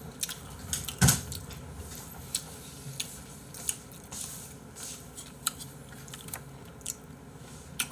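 Close-miked eating sounds: a person chewing, with scattered sharp mouth clicks and one louder thump about a second in.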